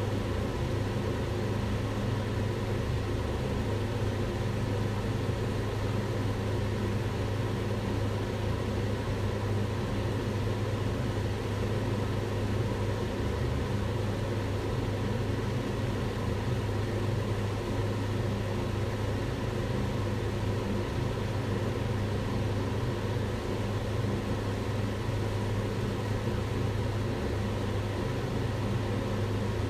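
Kitchen range hood extractor fan running steadily, a constant whooshing air noise with a low hum underneath.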